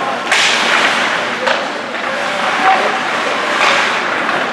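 Ice hockey play on the rink: skates scraping the ice in short hissing bursts and a couple of sharp clacks, over a steady rink hubbub with distant shouting voices.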